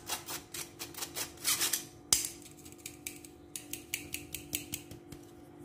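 Steel spoon scraping and clicking against a stainless-steel mesh sieve in quick repeated strokes, breaking up lumps of flour and besan to push them through. The strokes come fast for about the first two seconds, with one sharper click just after, then grow sparser and lighter.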